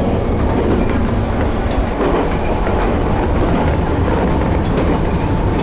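Toyama Chihō Railway Tateyama Line train running, a steady loud rumble with faint clicks of the wheels over the rails.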